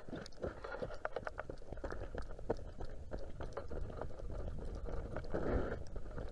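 Footsteps crunching and scraping on snow-dusted lake ice in an irregular run of short crunches, with wind rumbling on the microphone.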